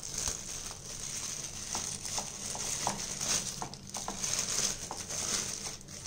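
Thin plastic bag crinkling in short, scattered crackles as it is pulled over a glass jar and gathered closed by hand.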